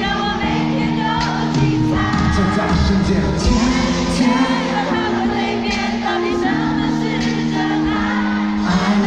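Live Mandopop concert music: singing over sustained held chords, with shouts from the crowd.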